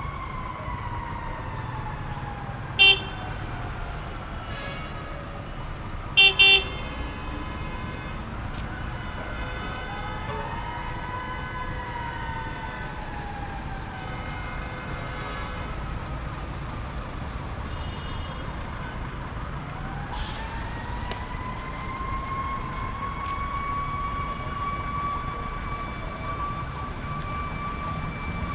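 City street traffic with a steady low rumble while an emergency vehicle siren wails, slowly rising and falling. A car horn sounds once about three seconds in and twice more, quickly, around six seconds.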